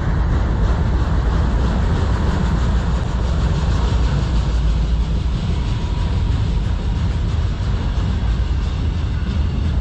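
A freight train of autorack cars rolling past close by: a steady, loud rumble of steel wheels on the rails.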